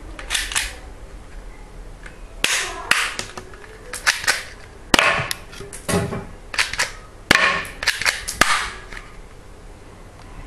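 Galaxy G.051A spring-powered airsoft pistol being cocked and fired: sharp snaps and clicks in irregular clusters, each followed by a short ring.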